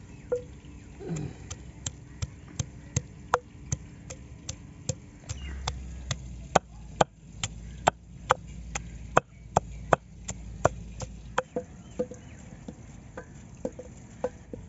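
A wooden pestle pounds garlic cloves in a black stone mortar: a steady run of sharp knocks, about three a second.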